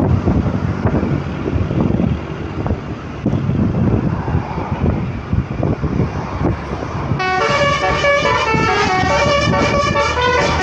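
Rushing road and wind noise, then about seven seconds in a bus's basuri 'telolet' horn starts playing its multi-note tune, several tones stepping up and down in pitch.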